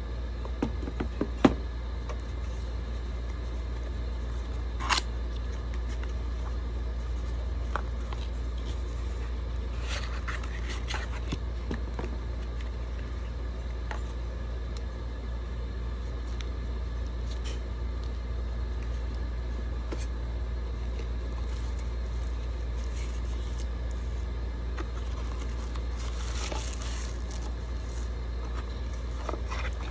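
Cardboard box and plastic-wrapped accessories being handled: a few sharp taps in the first seconds and another about five seconds in, then paper and plastic rustling about ten seconds in and again near the end, over a steady low hum.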